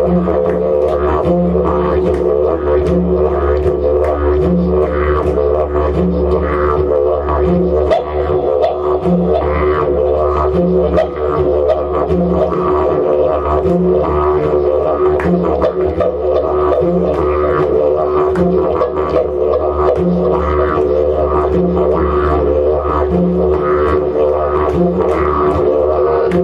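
A long didgeridoo played live: a steady low drone with shifting overtones and a quick rhythmic pulse, with a higher note sounding about once a second.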